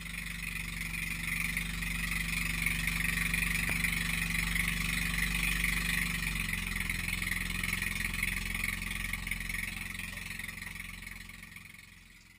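Outrigger boat's engine running steadily under way, a low, even drone with a hiss over it, fading out near the end.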